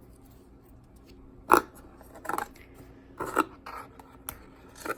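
Sports cards being handled and shuffled: a series of short sliding and scraping sounds with a small click, the loudest about one and a half seconds in.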